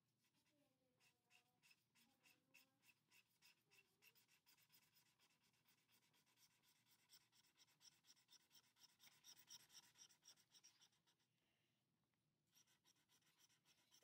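Faint scratching of a felt-tip marker colouring on paper, in quick repeated strokes a few times a second. The strokes stop briefly about eleven seconds in, then resume.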